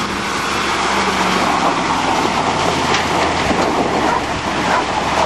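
Ford F-250 diesel engine running as the pickup drives through deep mud, under a steady rushing noise of tyres and mud.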